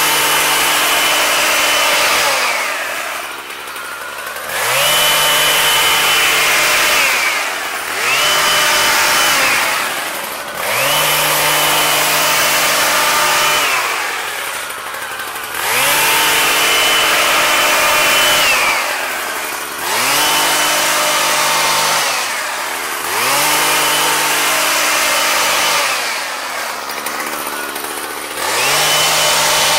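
Husqvarna 122HD45 hedge trimmer's small two-stroke engine revved repeatedly to full throttle while cutting. Each run lasts two to three seconds with a steady high whine, then drops back to idle before the next, about seven times.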